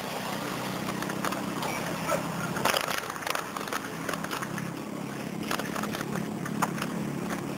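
Bicycle riding over concrete paving: a knobby tyre rolling, with rattles and clicks from the bike as it goes over bumps and joints, the loudest knocks about three seconds in and near the end, over a steady low hum.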